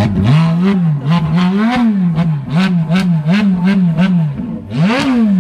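Ferrari F430's 4.3-litre flat-plane V8 free-revving while parked, blipped up and let fall about eight times in quick succession, then one bigger rev near the end.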